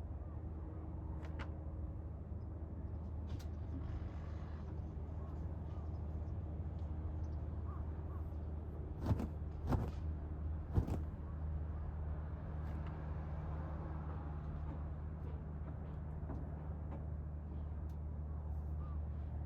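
A steady low mechanical hum, with three sharp clicks or taps about nine to eleven seconds in.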